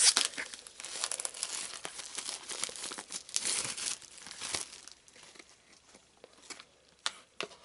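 Clear plastic shrink-wrap being torn and crinkled off a cardboard trading-card booster box, the crackling thinning out after about five seconds, with a couple of light clicks near the end.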